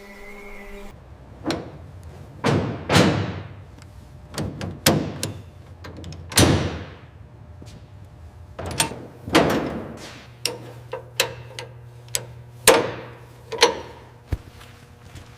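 A series of about fifteen heavy bangs and slams at irregular spacing, each a sharp hit that trails off quickly. A low steady hum comes in about two-thirds of the way through.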